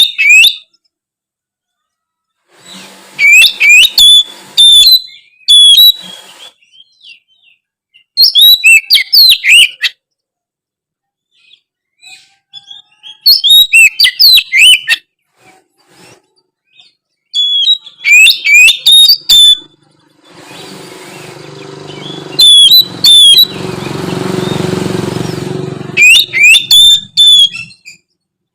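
Oriental magpie-robin (kacer) singing loud bursts of quick, varied whistled phrases, about seven bouts with short pauses between. In the second half a low rumbling noise swells for several seconds, then stops.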